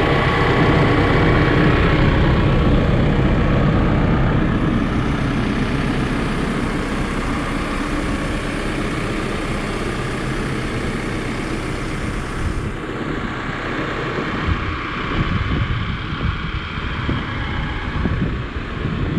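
2013 Case 590 Super N loader backhoe's four-cylinder diesel engine idling steadily. Wind buffets the microphone in the last few seconds.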